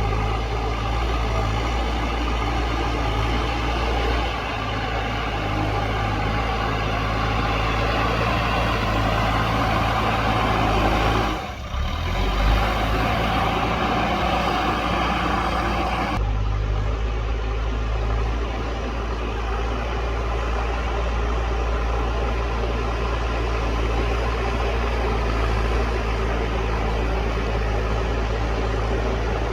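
Diesel engine of a JCB backhoe loader running steadily while it works soil, with a brief dip about a third of the way through and a change in tone about halfway.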